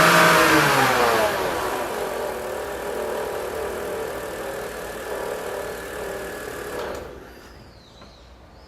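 BMW 325i straight-six engine coming down from a rev to idle, with the whirring of its accessory belt and pulleys, which the owner suspects comes from the alternator or the idler pulley. The engine stops about seven seconds in.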